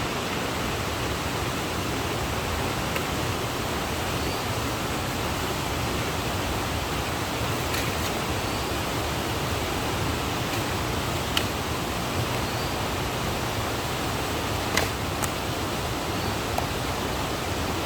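Stream water rushing steadily, an even unbroken noise, with a few faint clicks.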